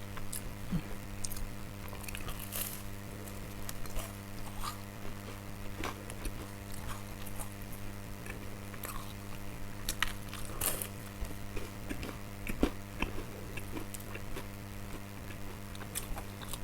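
Close-miked biting and chewing of crisp, flaky biscuits: irregular crunches and mouth sounds, over a steady low hum.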